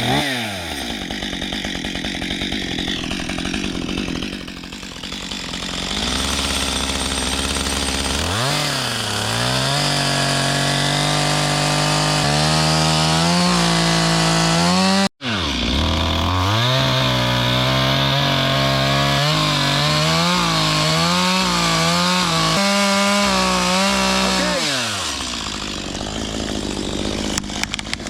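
Stihl gasoline chainsaw revving and cutting into a tree, its engine pitch wavering up and down as the chain bites into the wood. The sound cuts out for an instant about halfway through and then carries on.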